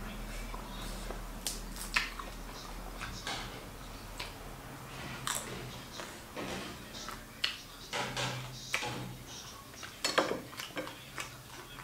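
Close-up eating sounds: chewing with scattered sharp mouth clicks. About ten seconds in, a utensil clicks and scrapes in a plastic bowl.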